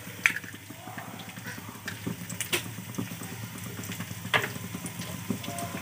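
An egg frying in hot oil in a wok: a steady crackling sizzle, with a few sharper ticks.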